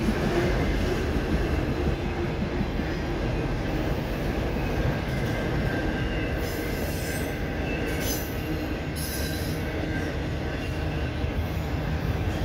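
Autorack freight cars rolling past: a steady rumble of steel wheels on the rails, with brief high squeals from the wheels a few times around the middle.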